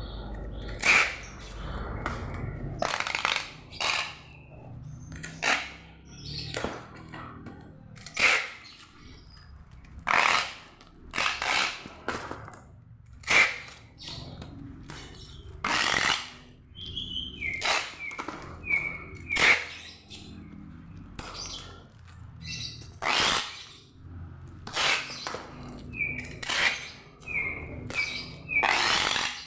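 Packing work: a run of short rustling and scraping bursts, about one a second, with a few short high chirps among them.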